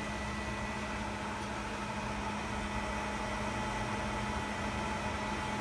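WDS-620 BGA rework station running, its fans and hot-air heater blowing: a steady hum with a few faint steady whining tones.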